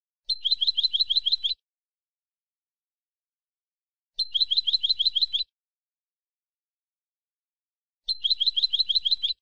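European goldfinch song phrase: a fast trill of about nine repeated notes lasting just over a second, heard three times about four seconds apart with silence between. Each repeat is identical, a wild goldfinch's phrase looped as a tutoring recording for teaching captive goldfinches to sing.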